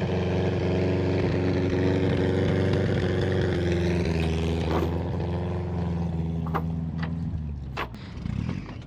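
A vehicle engine running steadily, then stopping about seven and a half seconds in, followed by a few light clicks.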